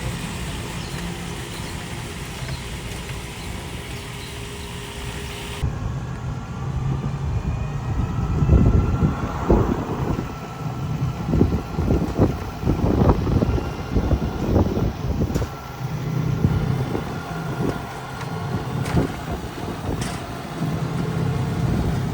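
Steady low hum and road noise of a ride, typical of a small electric cart moving along, with wind buffeting the microphone in irregular gusts from about eight seconds in.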